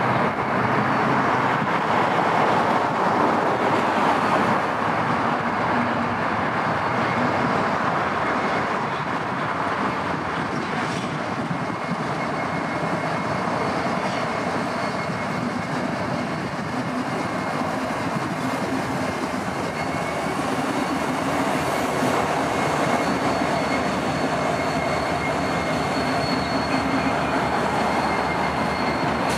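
BNSF diesel-electric locomotives, among them an EMD SD70ACe, rolling slowly past with their engines running. A thin, steady high-pitched squeal comes from the wheels on the rails, and a second, higher squeal joins about two-thirds of the way through.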